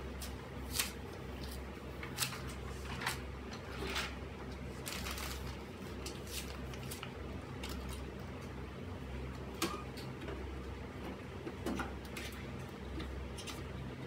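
Cloth wiping and dusting a stereo amplifier and its antenna rods: scattered short rubbing swishes and small knocks of handling, over a steady low hum.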